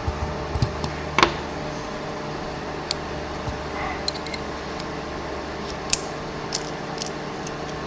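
Scattered small clicks and taps of metal lock parts being handled as a pin-tumbler lock is taken apart with a plug follower and tweezers, the sharpest about a second in. A steady fan or air-conditioner hum runs under them.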